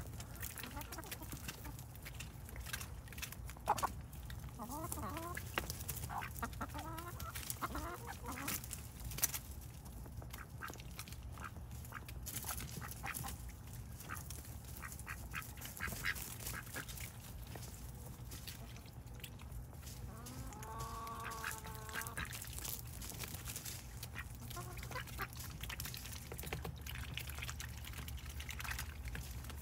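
Domestic ducks and chickens feeding on water hyacinth: many short clicks and snaps of bills pecking at the leaves, with a few soft calls and one longer call about two-thirds of the way through.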